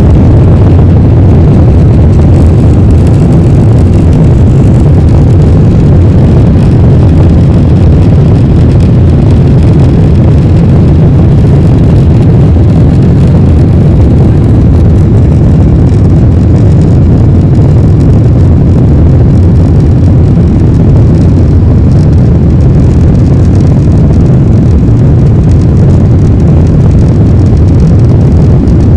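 Cabin noise inside a Boeing 777-300ER taxiing: a loud, steady low rumble from the engines and the moving airliner.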